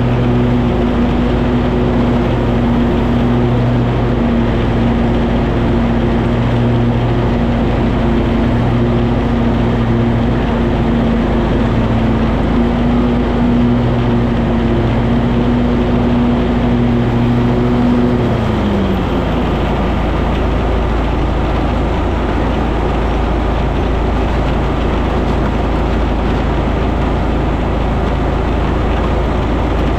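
Cub Cadet 2554 garden tractor running steadily while mowing, a loud drone with a clear pitch. About eighteen seconds in the pitch glides down and fades as something slows, leaving a lower, even rumble.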